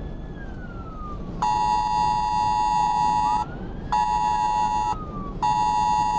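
A siren wails up and down in the distance. About a second and a half in, a loud, buzzy electronic alarm tone starts sounding in on-off pulses: one of about two seconds, then shorter ones of about a second with half-second gaps.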